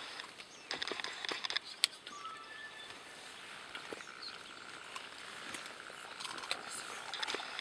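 Mountain gorilla chewing and crunching a green plant stalk at close range: scattered crisp cracks and snaps, the loudest about two seconds in, with rustling vegetation. A faint bird call or two in the background.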